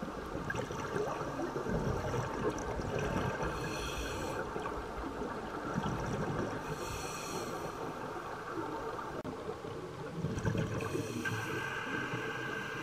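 Underwater scuba breathing through a regulator, with several gushes of exhaled bubbles over a steady rushing wash of water noise.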